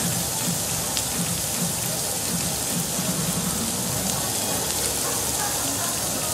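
Pork belly sizzling on a perforated grill plate over a live fire: a steady hiss with a faint pop now and then.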